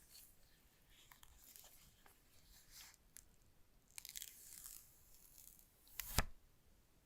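Faint rustling and crinkling of packaging being handled, with small clicks and one sharp knock about six seconds in.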